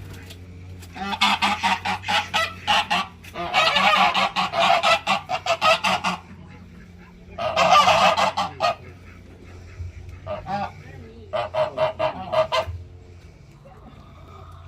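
Geese honking in five rough, rapid bouts, the longest a couple of seconds each, over a steady low hum.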